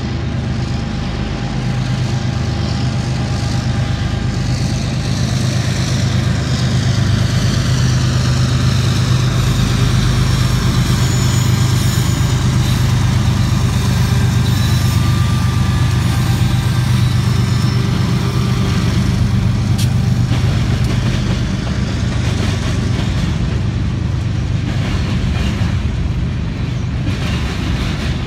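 Union Pacific diesel-electric freight locomotives passing close by, their engines running with a steady low drone that swells as they go by, and a high whine falling in pitch as they pass. The freight cars following them roll by near the end.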